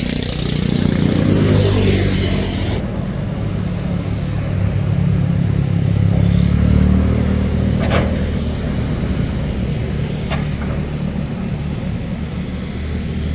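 Kobelco SK200 excavator's diesel engine running under hydraulic load as it works the boom and bucket through brush, the engine note swelling twice and easing back. Two short sharp knocks come in the second half.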